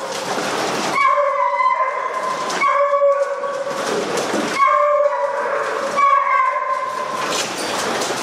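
Foxhounds giving four long howls, each falling slightly in pitch, over a steady crackling clatter from the pack feeding at a metal trough.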